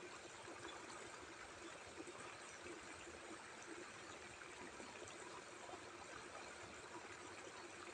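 Near silence: a faint, steady outdoor background hiss with no distinct events.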